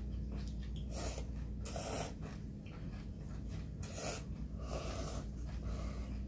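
Ramen noodles being slurped from a spoonful of broth, in about four short slurps, over a steady low hum.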